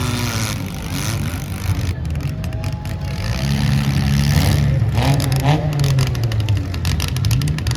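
Demolition derby cars' engines running and revving, with rising and falling engine pitch and a dense rattle from about two seconds in.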